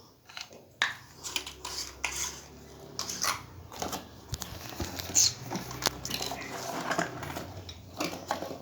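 Handling noise from LED disco lamps being tried out: repeated light knocks, clicks and clatter of hard objects being picked up and set down.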